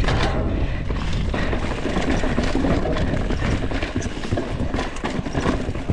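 Mountain bike rolling over a rocky trail covered in dry leaves: tyres crunching over leaves and stones, with a constant patter of knocks and rattles from the bike over the bumps.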